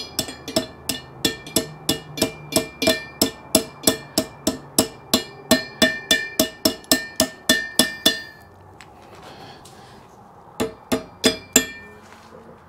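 Sharp, ringing hammer taps on metal, about three a second for some eight seconds, then after a pause four more. The strikes are bending the tabs of the lock washer over the impeller nut of a Yamaha F40 jet pump.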